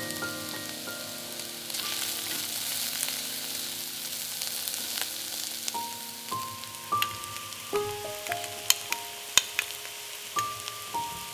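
Chopped onion, celery, carrot and bell pepper sizzling as they sauté in olive oil in a pot, with a few sharp clicks in the second half. Melodic background music plays throughout.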